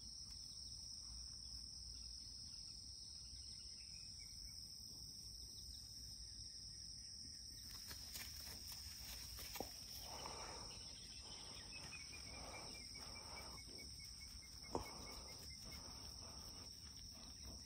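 Faint, steady chirring of insects in two high-pitched bands. From about eight seconds in, soft rustling and a couple of light clicks join it.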